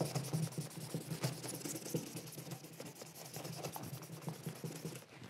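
A white Scotch-Brite pad (about 1000 grit) scrubbing over a small shellac-finished wood block, a soft, scratchy rubbing in quick irregular strokes. The pad is knocking back the sixth coat of shellac to even out its sheen.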